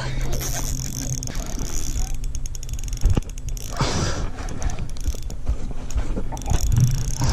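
Spinning reel being cranked, its gears giving runs of fast, even clicks, while a hooked barramundi is reeled in. There is a sharp knock about three seconds in.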